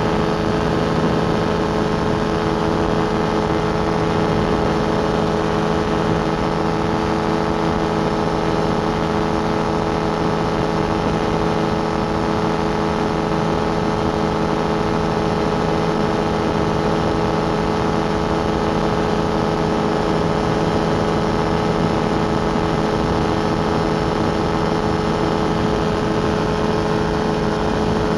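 Rotax 582 two-stroke engine of a Beaver RX550 ultralight running at steady power in flight, an even drone with no change in pitch or level.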